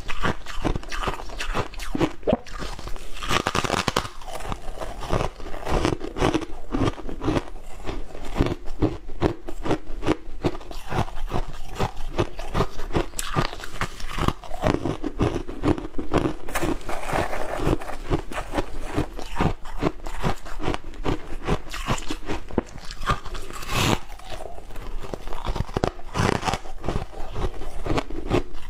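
Refrozen shaved ice being bitten and chewed, a dense run of crisp crunching and crackling that goes on without a break.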